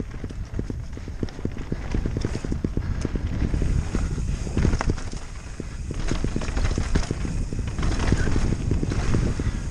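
Mountain bike riding fast over rock slabs and leaf-covered dirt: the tyres and frame clatter and rattle in a rapid, irregular stream of knocks, over a constant low rumble of wind on the microphone.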